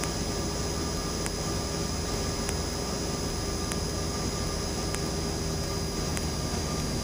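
Cessna 172M's four-cylinder Lycoming engine and propeller droning steadily in cruise, heard inside the cockpit, with faint ticks a little over a second apart.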